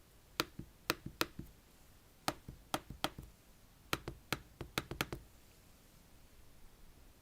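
A run of sharp taps or clicks on a hard surface, about a dozen in uneven clusters, stopping about five seconds in.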